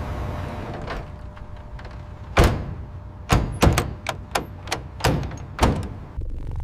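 A steady machine hum stops about a second in, followed by a series of about eight sharp knocks or clacks over three seconds, the first the loudest.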